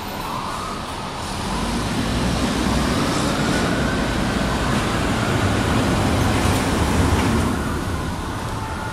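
Fire engine siren wailing in slow rising-and-falling sweeps over the loud rumble of the truck's engine. The rumble swells about a second and a half in and eases near the end.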